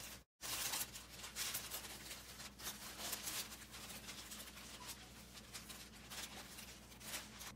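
Baking paper rustling and crinkling in short irregular bursts as it is lifted and rolled around a cream-filled meringue sheet, over a steady low hum. The sound drops out completely for a moment just after the start.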